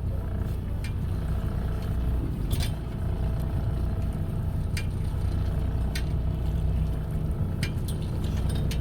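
Steady low drone of a fishing boat's engine, with a few short sharp clicks and knocks now and then.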